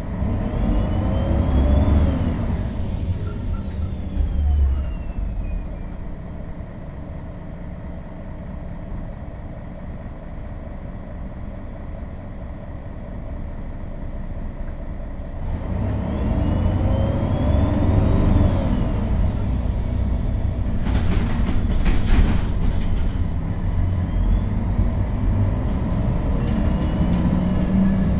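Diesel engine of a 2001 MAN NL 263 low-floor city bus heard on board, pulling away twice: each time the engine grows louder and a transmission whine rises in pitch and then falls away, with a quieter stretch between. A few sharp knocks come about three quarters of the way through.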